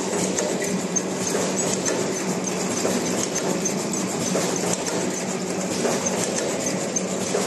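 Travel-pack wet wipes packaging machine running: a steady mechanical clatter over a constant hum, with fast light clicking throughout.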